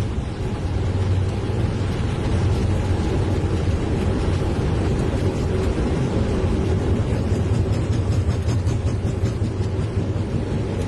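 Cockpit noise of a Boeing 777-300 on its takeoff roll at takeoff thrust: a steady rumble with a rushing hiss over it.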